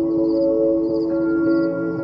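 Slow ambient music of sustained, ringing tones like a singing bowl, a new tone joining about a second in, with a faint high chirp repeating about twice a second.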